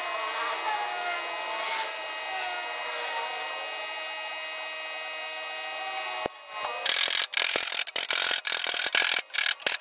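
Oxy-acetylene welding torch hissing steadily as a filler rod is fed into a steel van sill. About six seconds in it cuts off with a click, and loud, choppy bursts of rushing noise start and stop.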